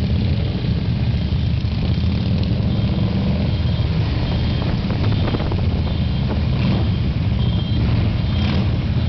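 Loud, steady low rumble of vehicle engines running.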